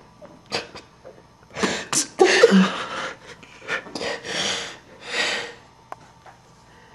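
A man being smothered, hands clamped over his mouth and nose, forcing out muffled gasping breaths in short irregular bursts. They stop after about five and a half seconds, followed by a single click.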